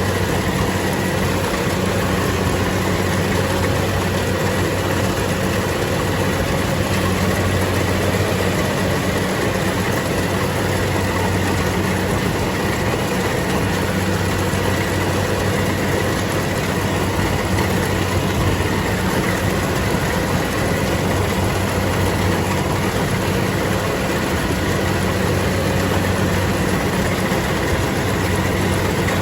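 A harvesting machine's engine running steadily at a constant speed, with a deep hum and no changes in pace.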